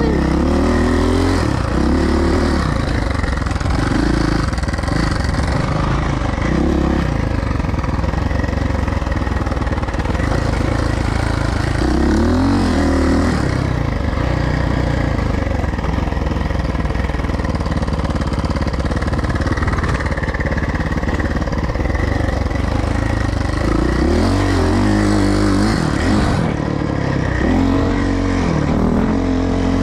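Suzuki motocross bike engine under riding, revving up and dropping back again and again as the throttle is worked, over a constant low rumble.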